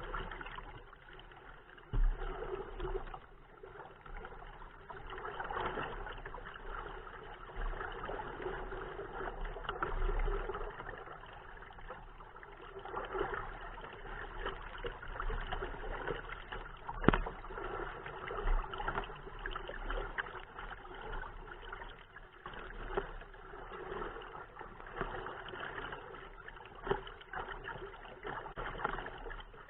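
Choppy water lapping and splashing against a kayak's hull in uneven surges, with wind gusting on the microphone as low rumbles. One sharp knock about 17 seconds in.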